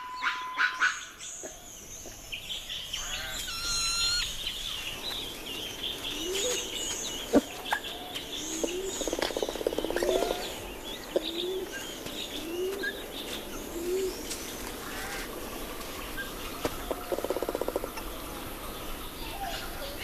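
Ring-tailed lemurs calling over high bird chirps: a run of short rising calls about one a second through the middle, with two bursts of rapid clucking.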